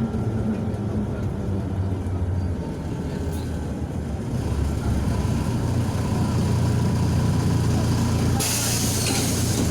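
MAZ 105.065 city bus heard from inside, its diesel engine rumbling, a little louder after about four seconds. Near the end a sudden hiss of compressed air from the bus's pneumatic system lasts about a second.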